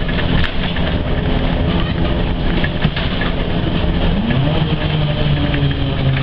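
Ikarus-435.17 articulated city bus under way, heard from inside the cabin: the diesel engine runs steadily and its note shifts about four seconds in, with clicks and rattles from the body.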